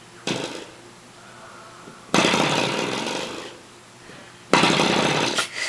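A spring door stop twanged by a kitten's paw, giving three buzzing boings that fade out: a short one near the start, a long, loud one about two seconds in, and another about four and a half seconds in.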